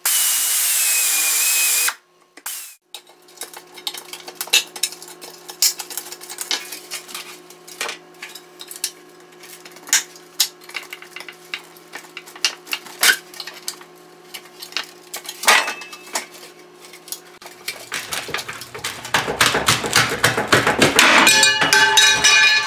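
Pneumatic air drill running for about two seconds as it drills through a spot weld on a rusted steel bracket, its whine falling as it cuts, then stopping sharply. Scattered metallic clicks and knocks follow as the bracket is worked loose by hand, and near the end a louder, continuous rattle of metal.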